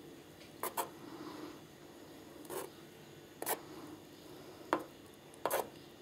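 Chopsticks stirring instant noodles in a small metal pot, knocking and scraping against its side: about seven light taps spread through, two of them close together near the end.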